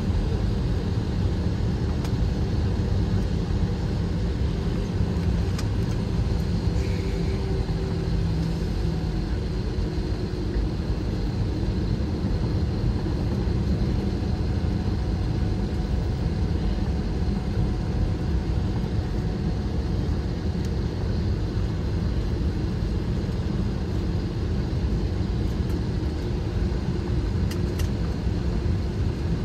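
Airbus A321 taxiing, heard from inside the cabin: a steady low rumble of the engines at idle and the wheels rolling on the taxiway.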